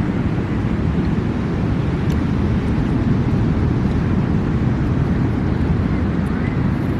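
Steady low rumbling outdoor noise with no distinct events, heaviest in the low end and loud throughout.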